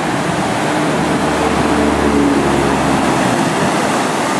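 Steady rushing noise of ocean surf, with a faint low hum under it for roughly the first three seconds.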